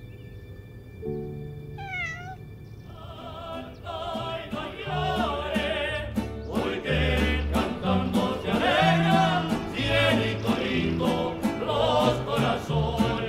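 Mariachi music: a sung melody with wide vibrato over stepping bass notes, starting quietly and swelling fuller from about four seconds in.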